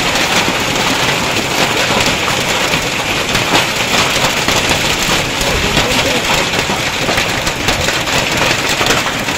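Hailstorm: hail and heavy rain pelting down, a loud, steady, dense clatter of countless small impacts.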